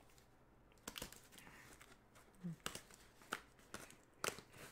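A box cutter scoring through masking tape on a cardboard box: faint, short scrapes and ticks, about four strokes spread a second or so apart.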